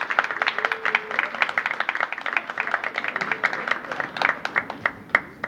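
A crowd of people applauding, with many hands clapping in a dense patter that thins out in the last second and stops abruptly near the end.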